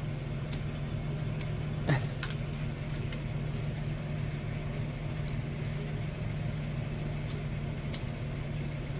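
Car engine idling with a steady low hum, with a few sharp clicks scattered over it.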